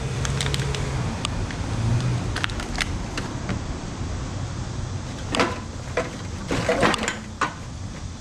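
Empty aluminium drink cans clinking and rattling as they are handled and packed into a bag: a run of sharp metallic clinks, thickest between about five and seven and a half seconds in, over a low steady hum.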